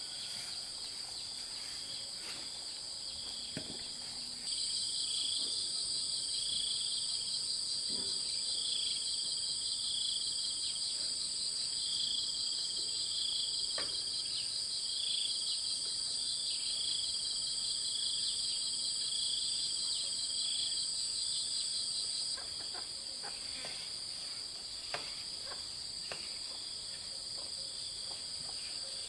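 Steady, high-pitched insect chorus with a fast pulsing trill, growing louder about four seconds in and dropping back shortly before the end, with a few faint taps.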